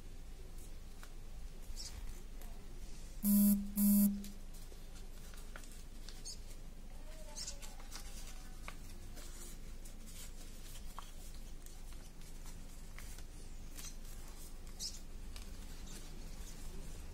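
Soft rustling and light crinkles of a sheet of origami paper being folded and creased by hand. Two short, loud buzzes come about three and four seconds in.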